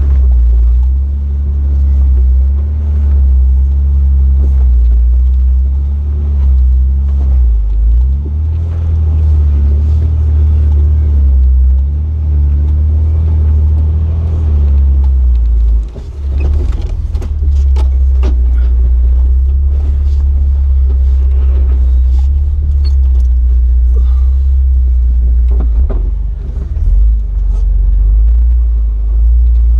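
Off-road Jeep's engine running at low revs, a steady low rumble that rises and falls slightly, with scattered knocks and clatter in the second half.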